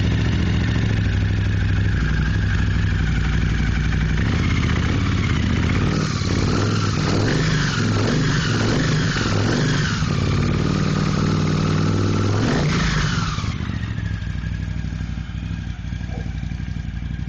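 Freshly rebuilt Honda CX500 V-twin running through shortened Harley exhaust pipes just after starting, its pitch rising and falling with several throttle blips in the middle, then settling to a quieter, steadier idle near the end.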